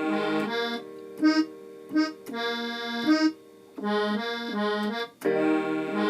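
Electronic keyboard on a sustained organ-like voice playing the song's chord groove in F: held chords broken by short, stabbed chords.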